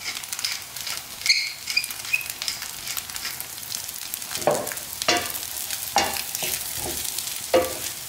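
Schupfnudeln frying in margarine in a pan, with a steady sizzle. A hand pepper mill grinds over them in the first couple of seconds, then a wooden spoon stirs and scrapes through them about four times in the second half.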